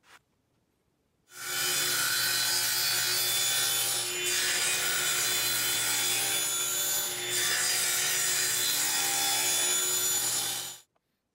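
Table saw running and cutting through a wooden blank pushed across a crosscut sled, a steady loud saw noise over the motor's low hum. It starts suddenly about a second in, eases briefly twice, and stops suddenly near the end.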